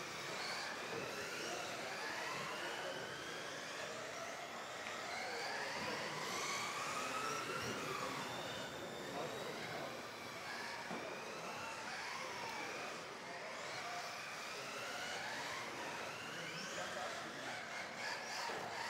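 Several electric RC offroad buggies racing together, their motors whining in overlapping tones that rise and fall in pitch as the cars accelerate down the straights and brake into the turns.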